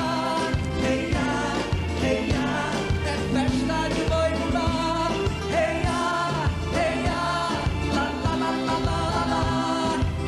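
Boi-bumbá toada played live by a band: a lead voice singing over drums and instruments, with a steady, driving beat.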